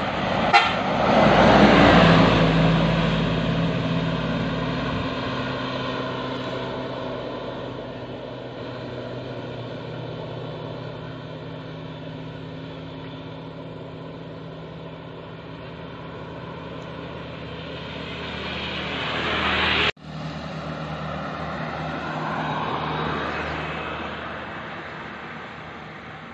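A large diesel coach's engine running loud as the bus passes close by, then trailing off. A sharp click comes just after the start. Another vehicle's sound swells, is cut off abruptly, and a further vehicle passes and fades.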